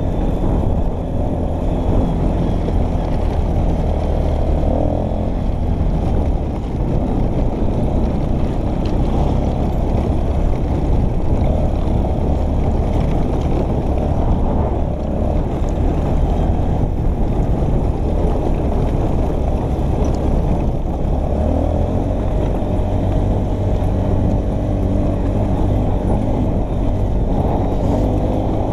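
ATV engine running steadily as the four-wheeler is ridden over a rough dirt trail, its pitch rising and falling a little with the throttle.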